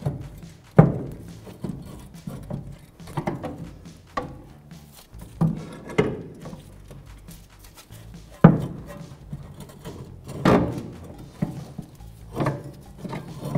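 Irregular metallic clunks and knocks as a steel coil-spring rear strut assembly is levered and wrestled out of the rear suspension with a pry bar, knocking against the suspension bracket and link. The loudest knocks come about a second in and again past the middle.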